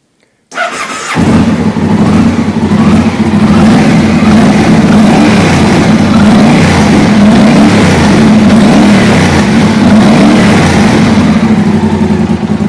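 Yamaha TDM 850 parallel-twin engine cranked on the starter, catching about a second in and then idling steadily. The knock from the timing-chain area is still there even with the cam chain tensioner pushed in one more click, which the owner takes to mean the timing chain needs replacing.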